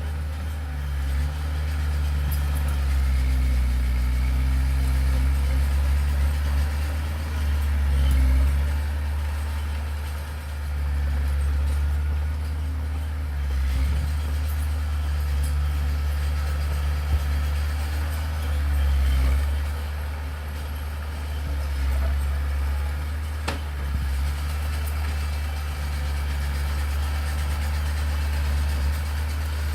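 Diesel engine of heavy earthmoving machinery running with a deep, steady rumble that swells and eases with the load, with a few sharp knocks.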